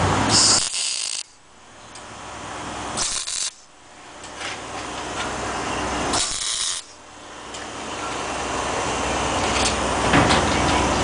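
Toyota Sequoia's engine running, heard close under the truck by its exhaust pipes: a steady low hum with three short rushes of hissing noise, each cut off by a sudden drop in level that builds back over a couple of seconds.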